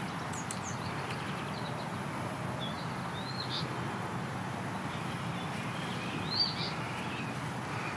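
Outdoor ambience: a steady background hiss with a few short, high bird chirps, a couple at a time, about a second, three seconds and six and a half seconds in.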